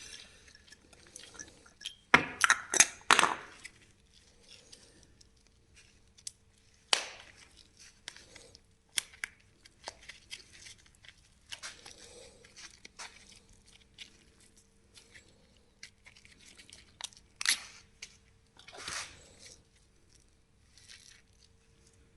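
Scattered clicks, knocks and scrapes of hand tools and metal parts being handled during suspension work, with a quick cluster of sharp knocks a couple of seconds in; a faint steady hum sits underneath.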